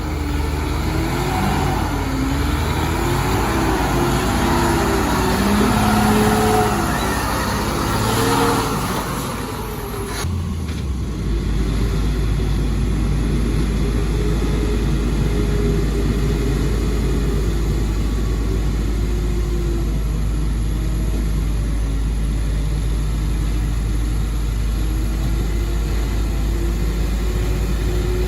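Heavy diesel engines working in mud. For about the first ten seconds the engine revs up and down under load; about ten seconds in the sound changes suddenly to a steadier, even engine run.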